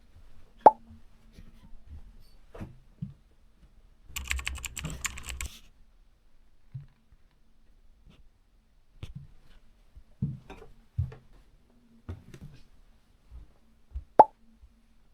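Scattered knocks and thuds of hands-on renovation work, with two sharp, louder knocks near the start and near the end and a short rattling clatter about four seconds in.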